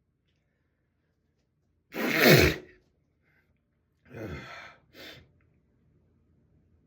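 A person sneezing: one loud sneeze about two seconds in, with a falling pitch, then a quieter, shorter one about two seconds later and a brief sound right after it.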